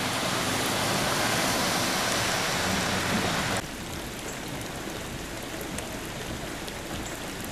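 Chevrolet pickup truck pushing through street floodwater, a steady rush of spray from its wheels with a faint engine hum beneath. About three and a half seconds in this changes abruptly to a quieter, steady hiss of rain falling on the flooded street.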